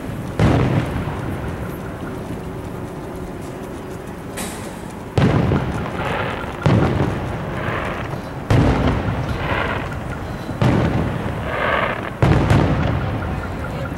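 Aerial fireworks shells bursting some distance away: one boom near the start, then five more from about five seconds in, one every one and a half to two seconds, each trailing off in a rumble.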